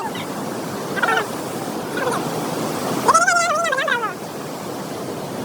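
Steady rush of water from a waterfall and river. About three seconds in, a wavering, voice-like call rises over it for about a second.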